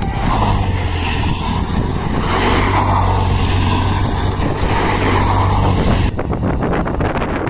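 Small commuter motorcycle engine held at high revs while the rear wheel spins and slides on loose dirt in a drift. It runs steadily, then cuts off abruptly about six seconds in.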